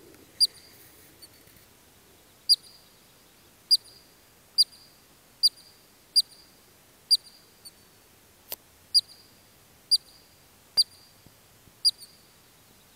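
Columbian ground squirrel giving its alarm call: a short, sharp, high chirp repeated about once a second, a dozen times. Two faint clicks come between chirps late on.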